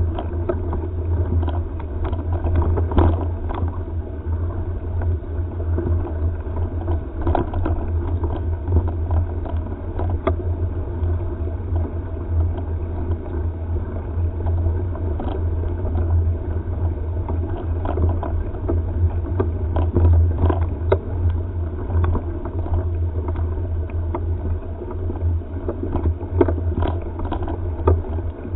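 Wind buffeting the microphone of a helmet-mounted camera on a moving mountain bike, a steady low rumble with frequent small knocks and rattles as the camera jolts over the rough dirt trail.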